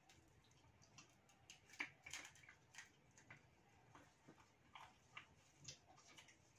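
Faint, irregular clicks and crackles of fried mantis shrimp shells being cracked and peeled by hand while eating.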